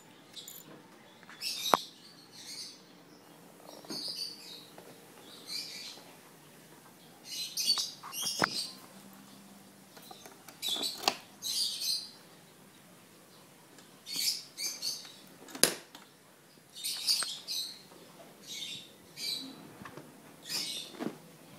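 Birds chirping in short, irregular bursts every second or two, with a few sharp clicks.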